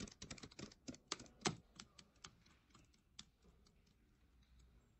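Calculator buttons being tapped: quick, irregular light clicks, dense over the first two seconds, then only a few scattered ones.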